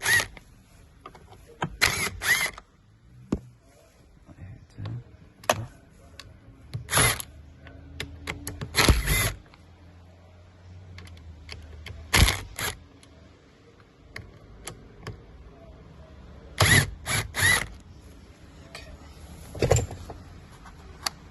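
Ratcheting tool clicking in short bursts of a few strokes at a time, loosening T25 Torx screws.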